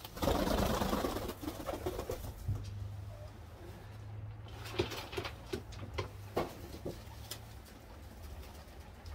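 Domestic pigeons cooing in a loft, with a short burst of rustling and wing flapping in the first second or two and a few light knocks later on.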